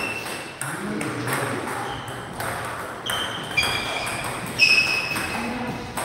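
Table tennis ball striking the bats and the table: a handful of sharp, ringing pings about two to five seconds in, the loudest near the end.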